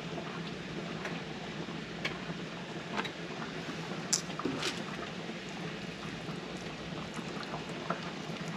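Steady bubbling of a pot of pasta water boiling on the stove, with a few light clicks and taps scattered through it.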